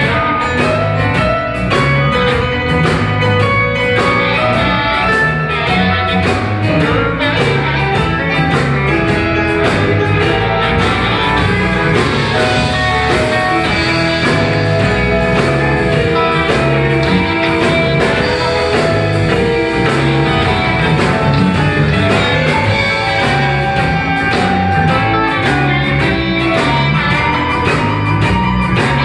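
Live electric blues band playing: electric guitar, bass, keyboard and drums keeping a steady beat, with a harmonica played in cupped hands at the mouth.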